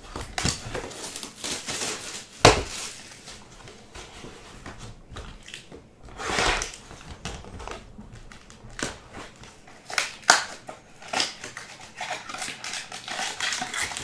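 Hands handling a trading-card box and tearing open a foil card pack: irregular rustling and crinkling of the wrapper and cardboard, with a sharp knock about two and a half seconds in.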